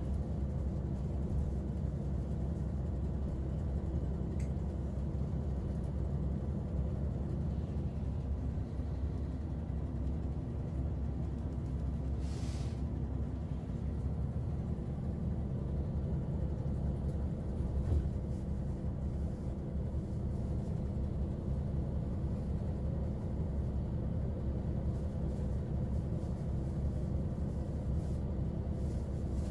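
Steady low rumble of a moving vehicle, holding even throughout, with a brief hiss about twelve seconds in and a soft thump a few seconds later.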